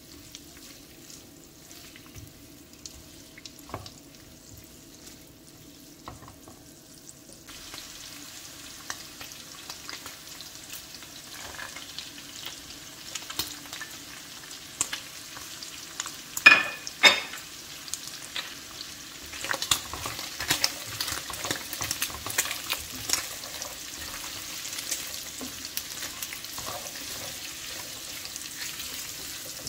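Lamb cubes frying in butter in a pan, sizzling steadily while a silicone spatula stirs them. About halfway through, diced carrots are scraped in from a dish, with two loud knocks. After that the sizzling is fuller, with frequent small clicks from the stirring.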